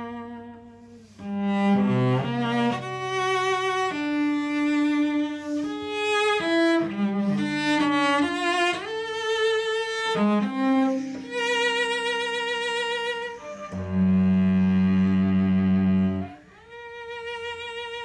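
A solo cello played with the bow, moving through a phrase of changing notes. Midway it sustains a loud, low held note. It ends on a softer, high held note with vibrato.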